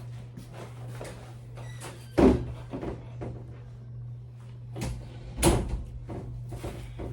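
Two sharp knocks, about two seconds in and again about five and a half seconds in, with smaller clicks and rustles between them, over a steady low hum.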